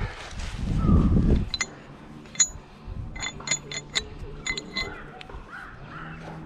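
A loud low rumble in the first second and a half, then a string of sharp metallic clinks, several in quick succession, each ringing briefly.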